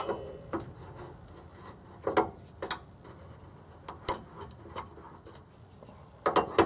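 Wrenches working the rusted flare-nut fittings of a fuel filter line: scattered metal clicks and scrapes, a few louder knocks about two, four and six seconds in.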